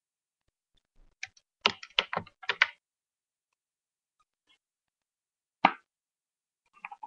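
Sharp clicks and taps from makeup being handled with a brush and an eyeshadow palette: a quick run of about five taps a little over a second in, then one sharp click a few seconds later, and a few faint clicks near the end.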